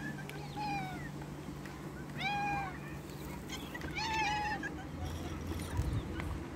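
Domestic cats meowing for food: three short meows spaced about one and a half to two seconds apart.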